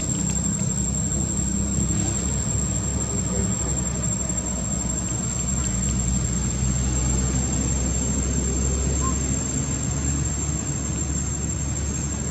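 Steady low rumble of an engine running, with a thin steady high whine above it; the engine's pitch drops a few seconds in.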